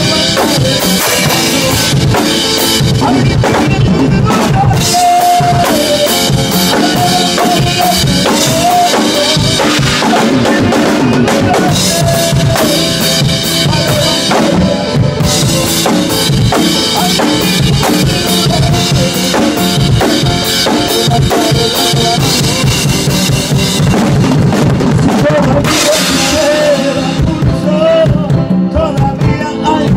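Drum kit played close up in a busy, steady rhythm: bass drum, snare and cymbal strokes keeping time for a song.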